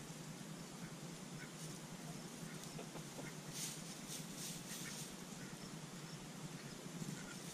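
Backyard hens giving occasional soft, short clucks while foraging, over a steady outdoor hiss, with a few brief scratchy rustles about halfway through.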